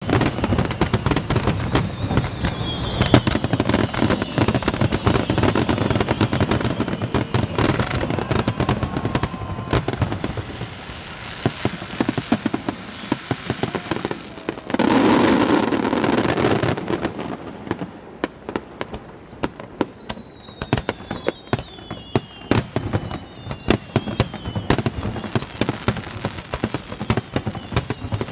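Fireworks display: a rapid barrage of bangs and crackling bursts, with a louder, denser volley about halfway through, thinning to scattered pops after it.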